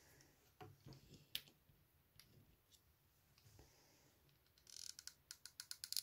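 Faint scattered clicks, then from near the end a quick even run of faint clicks, about eight a second: a hot glue gun's trigger being squeezed to feed the glue stick.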